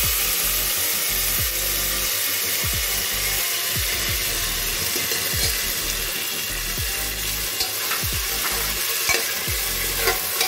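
Diced potatoes and capsicum sizzling in hot groundnut oil in a pressure cooker while being stirred with a slotted steel spatula. The frying hiss is steady, with a few sharp clicks near the end.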